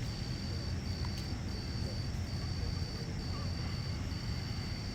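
Crickets trilling in a high, steady pulse, each trill a little under a second long with a brief break between, over a low steady rumble.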